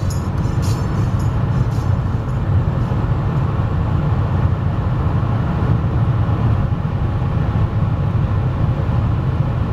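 Steady low rumble inside the cabin of a Fiat Stilo 1.9 JTD diesel car at motorway speed: engine, tyre and wind noise blended.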